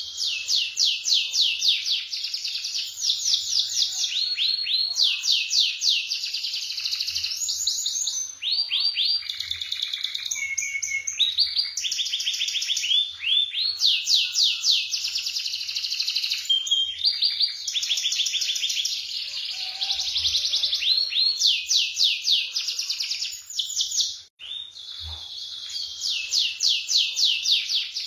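Domestic canary singing a long, high-pitched song of rapid rolling trills, one phrase of fast repeated notes after another with only short breaks.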